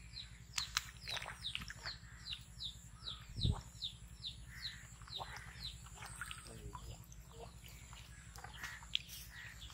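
Small birds chirping: a quick, steady run of short, high peeps, each falling in pitch, several a second, with a single low thump about three and a half seconds in.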